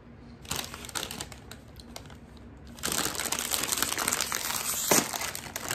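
Crinkling of a foil bag of Cool Ranch Doritos being handled and opened: light scattered crackles at first, then dense crinkling from about three seconds in, with one sharp, loud crackle near the end.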